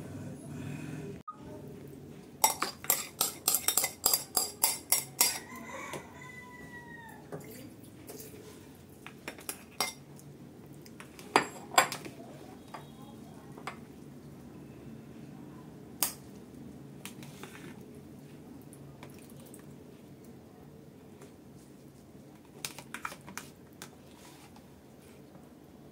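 A metal spoon clinks and scrapes against bowls as enoki mushrooms are rinsed in a bowl of water. There is a quick run of about a dozen clinks, a short falling ring, then scattered single clinks.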